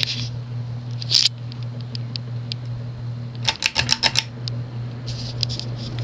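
Union Super 36 ceiling fan's cast-aluminum motor running on low speed with a steady hum; the fan's direct rod mounting has no rubber isolation, so the hum carries into the ceiling. Sharp clicks sound over it, a quick run of about six about three and a half seconds in.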